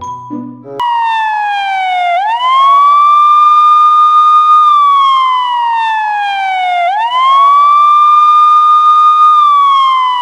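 Police siren wailing loudly. Its pitch rises quickly, holds for about two seconds, then slides slowly down, twice over. A few tinkly music notes come just before the siren starts.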